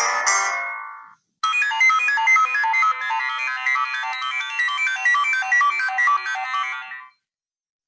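Preset iPhone SE ringtones playing one after another. The end of one tone fades out about a second in, then a melodic ringtone of quick repeating notes plays for about six seconds and stops.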